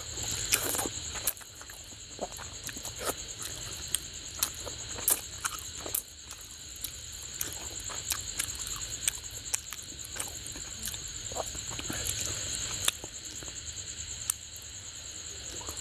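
Close-miked eating sounds: wet clicks and smacks of chewing on fish curry and rice, with fingers working through the food, scattered irregularly throughout. A steady high-pitched whine sits underneath.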